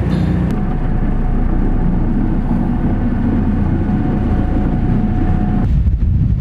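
Boat engine running steadily, heard on board, with a thin steady whine over it that cuts off near the end.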